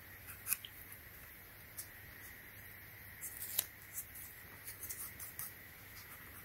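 Faint crinkling and clicking of masking tape and rubber being handled as the tape is pressed and smoothed onto a rubber slide sandal strap, busiest past the middle.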